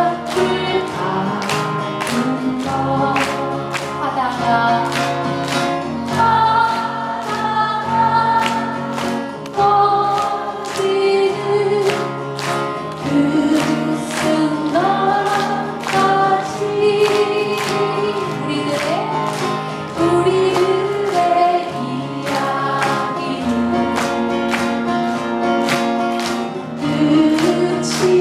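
Live folk song: sung melody in long held notes over a steady, strummed accompaniment at about two strokes a second.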